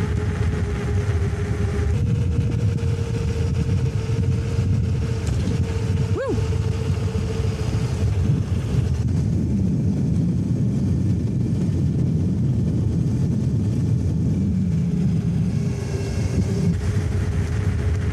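Wind noise on the microphone and fat tyres running on wet pavement as the Engwe Engine Pro folding e-bike goes downhill at about 45 km/h, with a steady whine from its hub motor. A brief rising squeak about six seconds in.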